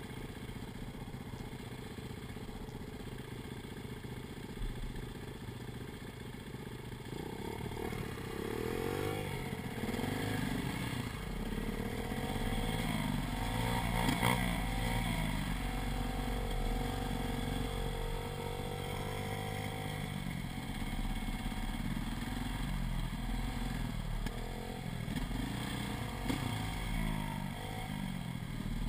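KTM dirt bike engine heard from the rider's seat, running steadily at low speed, then from about a quarter of the way in revving up and down again and again as it rides along the trail, with a small pit bike's engine running just ahead.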